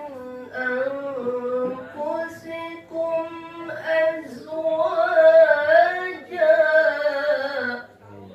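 A male qori reciting the Quran in the melodic, sung tilawah style, with long held notes and ornamented turns. About halfway through it climbs higher and louder, then the phrase breaks off just before the end.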